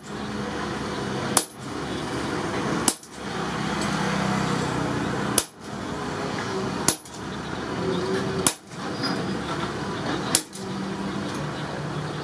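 Hammer blows on a long-handled tool set against a red-hot steel car axle on the anvil: six sharp metal strikes, one every one and a half to two and a half seconds, over a steady background noise.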